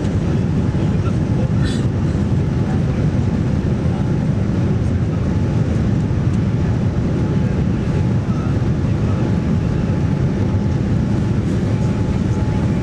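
Steady, loud cabin noise inside a Boeing 787-9 airliner: an even low rumble of engines and airflow. A brief click comes just under two seconds in, and a faint steady tone joins it about halfway through.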